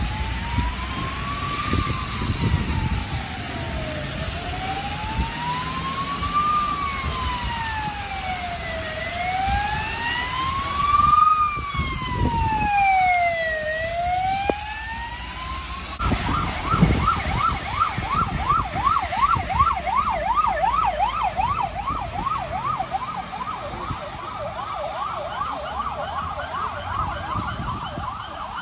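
Emergency vehicle siren sounding a slow wail that rises and falls about every four and a half seconds. About halfway through it switches to a fast yelp of about four cycles a second.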